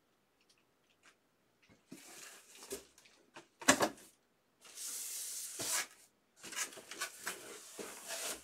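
Handling noise as trading-card boxes are opened: a sharp knock a few seconds in, then a steady hiss for about a second and further rustling near the end.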